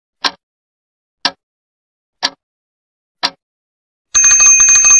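Countdown-clock sound effect: four crisp ticks one second apart, then about four seconds in a twin-bell alarm clock rings loudly with a fast rattle, signalling that time is up.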